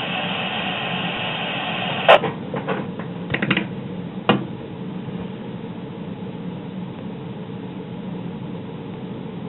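Steady hiss from an amateur two-way radio on an open repeater channel, with a few sharp clicks and pops about two to four seconds in, the first the loudest; the hiss is a little quieter after them.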